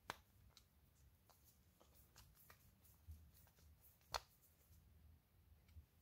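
Near silence with a few faint sharp clicks, the clearest just at the start and about four seconds in, from tools handled against a ratchet head as its cover-plate screw is snugged down.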